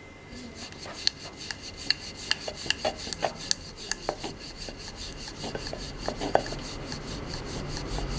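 Wooden rolling pin rolling out poori dough on a floured board. It makes back-and-forth rubbing strokes with light clicks, about two to three a second, and starts a moment in.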